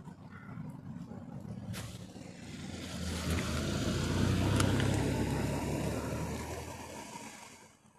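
A car drives past, its engine and tyre noise swelling to a peak about halfway through and then fading away.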